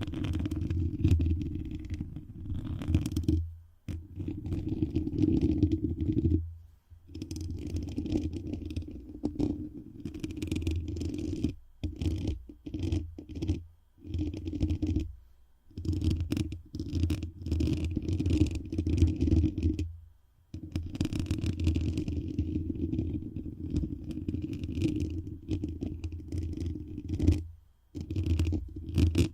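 Rubbing and scraping directly on the microphone, a low, muffled rumble in stretches of a few seconds with brief pauses between them.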